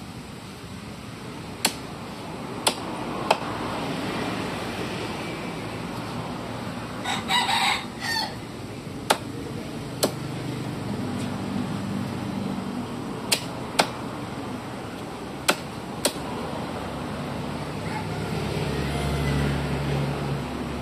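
Heavy cleaver chopping through chicken on a wooden log chopping block: about nine sharp single knocks, spaced irregularly. A rooster crows in the background.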